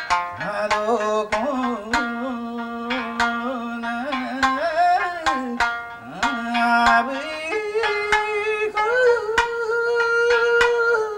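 Amami shima-uta folk song: a sanshin, the three-string snakeskin lute, plucked in sharp strokes under a solo voice singing long, ornamented held notes. The voice is low at first and moves up to a higher register about seven seconds in.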